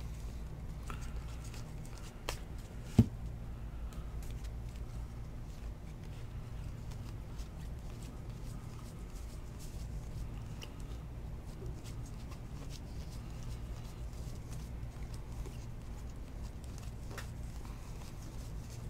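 Trading cards being flipped through by hand, with faint slides and ticks of card against card over a steady low hum. There is one sharper click about three seconds in.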